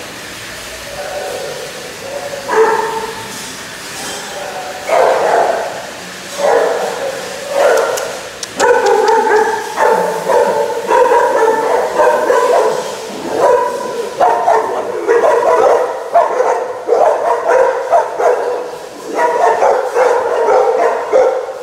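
Shelter dogs in their kennels barking and yipping, in scattered bursts at first and then almost without a break from about eight seconds in.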